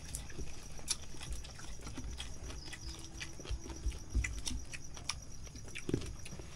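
People eating with their hands: scattered, irregular clicks and smacks of chewing and fingers picking grilled fish and rice off banana leaves. Crickets chirp steadily in the background.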